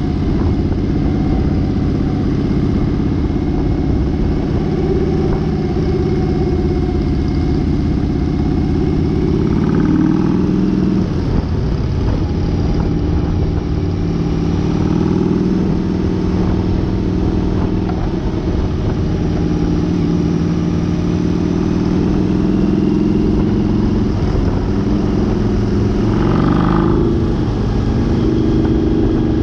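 Harley-Davidson V-Rod's V-twin engine running steadily under way, with a steady rush of wind. The engine note shifts about a third of the way in and again near the end.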